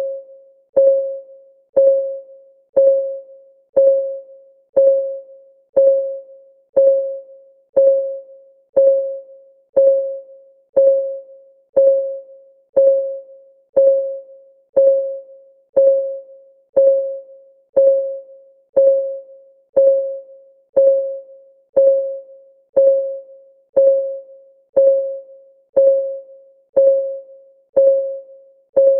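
Countdown timer's synthetic clock ticking: a short, pitched tick about once a second, each fading quickly, in a steady even rhythm.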